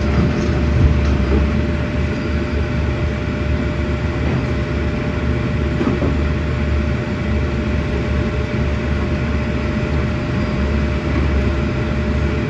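Heavy diesel engine of a working excavator running steadily: a deep, continuous drone with a faint steady whine above it and a few light knocks.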